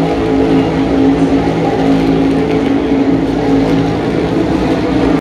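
A pack of NASCAR Cup Series stock cars running together, their V8 engines making a loud, steady drone.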